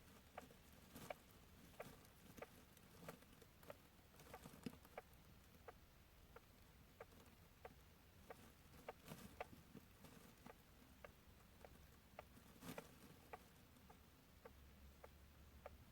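Djungarian hamster snoring in its sleep: faint, short ticks with each breath, evenly spaced at about three every two seconds, with a few louder clicks among them.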